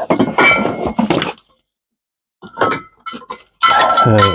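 Low, moo-like moaning and drawn-out high squealing, with a few sharp clinks near the middle: noises likened to cows coming home.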